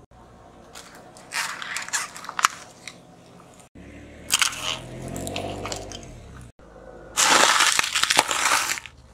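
A car tyre rolling over and crushing objects in three short takes. White plastic trays crunch and crack about a second in, plastic drinking straws crackle midway, and a packet of crackers crunches loudest near the end.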